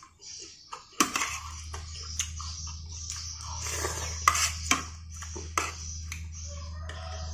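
Metal spoon scraping and clinking against a plate while rice porridge is scooped up, with several sharp clinks and chewing sounds in between, over a low steady hum.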